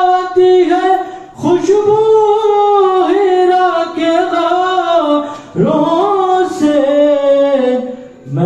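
A man singing an Urdu manqabat unaccompanied, in three long melodic phrases with held, gliding notes and short breaths between them.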